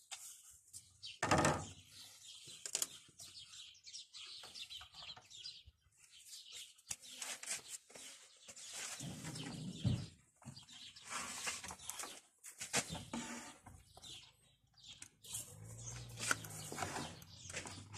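Birds chirping in repeated short calls, mixed with scattered clicks and a louder knock about a second in as metal clips and wires are handled.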